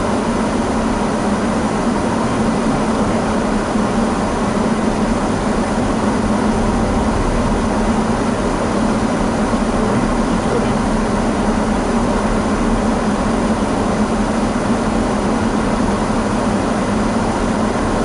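Steady in-cabin driving noise of a Daihatsu Rocky 4WD on a packed-snow road: tyre and road noise mixed with a low drone from the 1.0-litre turbo three-cylinder engine, unchanging throughout.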